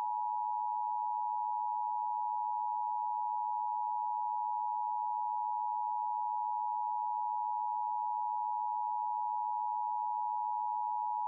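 Emergency alert attention tone: one steady, unbroken, mid-high beep held for the whole stretch, in a simulated emergency broadcast.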